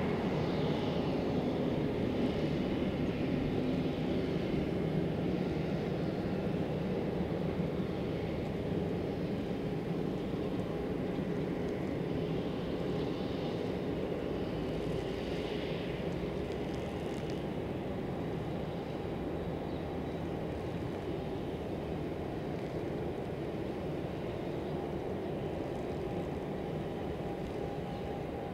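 Boeing 767-300 jet engines running at low taxi power, heard from a distance as a steady rumble with a thin steady whine, slowly getting quieter.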